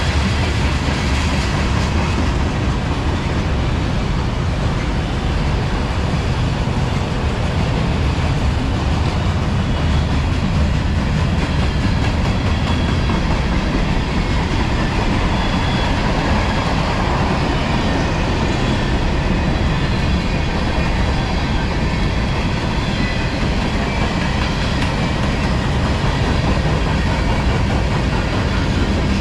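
Freight cars of a long CSX manifest train rolling past, a steady rumble of steel wheels on rail with clickety-clack and faint thin squeals from the wheels.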